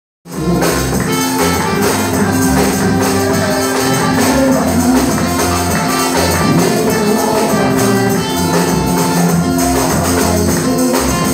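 Live gospel worship music: a congregation singing over a shaken tambourine and a moving bass line.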